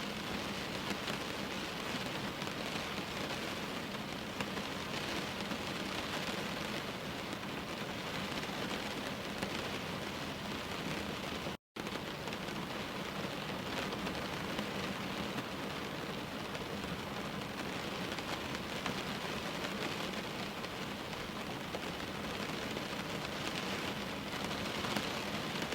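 Steady rain falling, an even continuous hiss and patter. It cuts out completely for an instant about halfway through.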